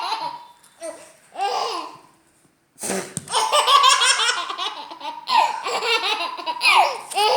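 Baby girl, 8 months old, laughing in hearty fits of giggles. A bout dies away in the first two seconds. A brief sharp noise comes just before three seconds in, then a long unbroken run of belly laughs.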